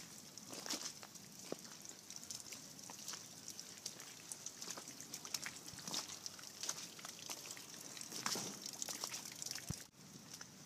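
Water dripping and trickling after a hailstorm, with many scattered small ticks and crackles; the sound drops out abruptly near the end.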